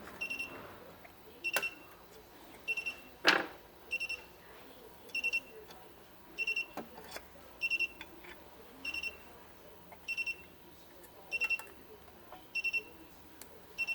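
Miracle A9 key cutting machine beeping, a short double beep repeated about every second and a quarter. A few clicks and one sharp knock about three seconds in.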